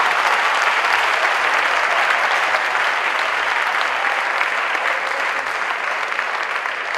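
Theatre audience applauding, a dense steady clapping that slowly dies down toward the end.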